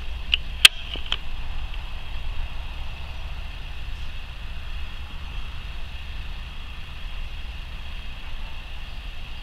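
Scania G420 truck engine running with a steady low drone. A few sharp clicks come in the first second or so; one of them, just over half a second in, is the loudest sound.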